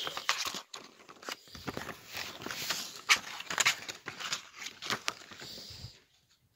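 Plastic packaging and bubble wrap rustling and crinkling as they are handled, with irregular clicks and crackles. It stops about six seconds in.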